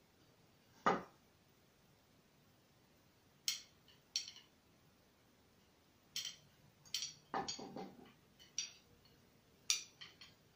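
Thick knitting needles clicking and tapping against each other as stitches are worked, a dozen or so irregular light clicks with a louder knock about a second in.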